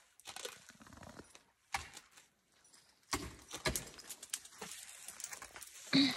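Ice-climbing tools, ice axes and crampons, striking and scraping ice in irregular sharp knocks. There is one knock early, a quick cluster past the middle, and the loudest strike near the end.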